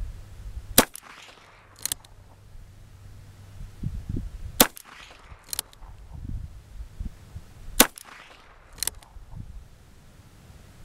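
Ruger Single Six .22 LR revolver fired three times, about three to four seconds apart. Each sharp shot is followed about a second later by a much fainter crack.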